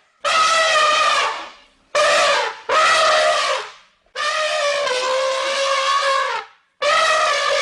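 Elephant trumpeting: five loud calls in quick succession with short gaps between them, the fourth the longest at about two and a half seconds.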